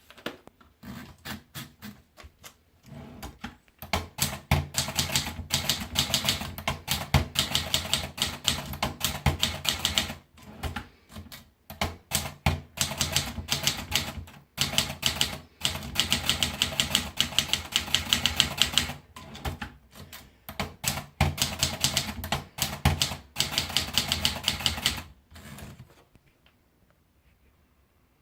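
Triumph Tippa portable manual typewriter being typed on: fast runs of key strikes in bursts of a few seconds with short pauses between, stopping shortly before the end.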